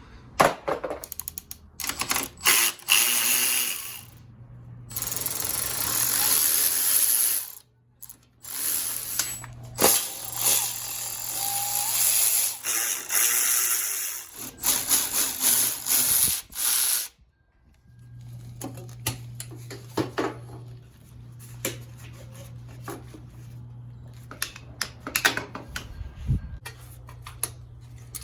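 A handheld power tool runs in several long bursts with abrupt breaks. Then come quieter scattered clicks and knocks, like hand tools working on metal parts, over a steady low hum.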